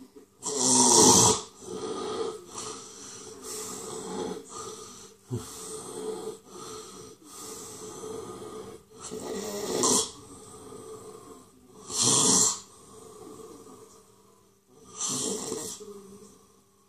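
A person gasping for breath: a string of loud gasps a few seconds apart, with quieter breaths between.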